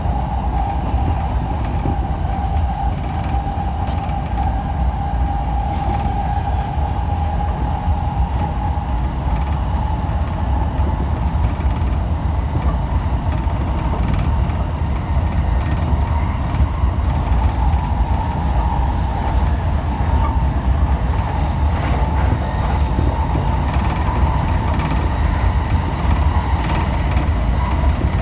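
Electric commuter train running at speed, heard from inside: a steady low rumble of wheels on rails with a motor whine whose pitch creeps slowly upward.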